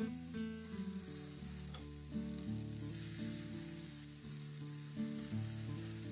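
Waffle batter sizzling on the hot non-stick plates of an electric waffle iron as it is spooned on, with background music playing underneath.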